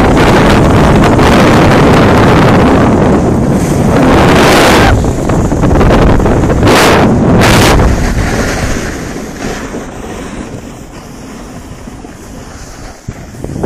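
Heavy wind buffeting the camera's microphone while moving down a ski slope, with three sharp hissing scrapes, like skis carving on hard snow, about four and a half seconds in and twice around seven seconds. The buffeting eases off sharply after about eight seconds.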